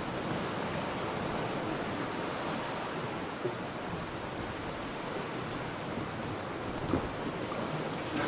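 Steady rush of water and wind from a racing yacht under way at speed, with two short knocks, about three and a half and seven seconds in.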